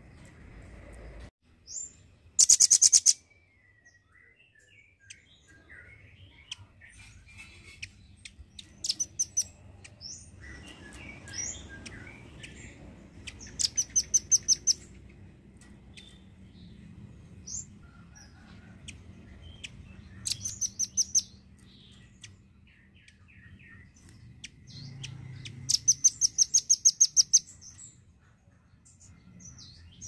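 A caged rambatan paruh merah (red-billed rambatan) calling: five loud, rapid, high-pitched rattling trills of about a second each, spaced some five or six seconds apart, with softer chirps and short notes between them.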